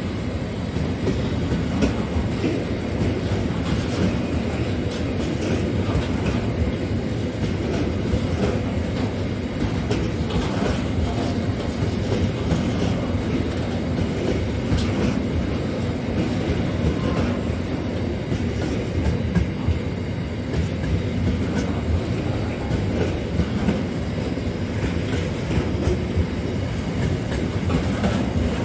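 Freight train wagons rolling past, a steady rumble of steel wheels on rail with a continual scatter of clicks from the wheels going over the track.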